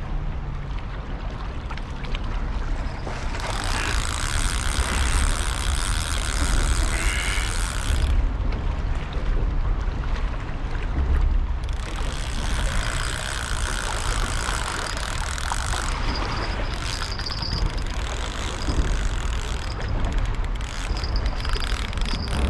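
Wind rumbling on the microphone in rain, with a hiss that swells for a few seconds at a time, twice.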